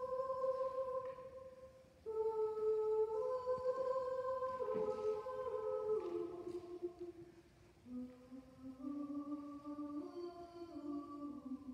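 Mixed chamber choir singing soft sustained chords in a reverberant church, the held notes stepping down in pitch phrase by phrase, with brief breaks about two and eight seconds in.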